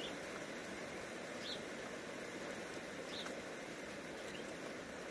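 Steady hiss of rain falling, with a few short, high chirps from a bird about every second and a half.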